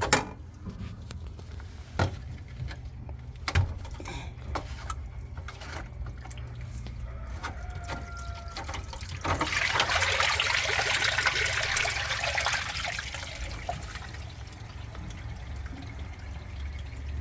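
Washing machine with a steady low hum and a few sharp clicks, then about nine seconds in a rush of water for several seconds that gradually tails off.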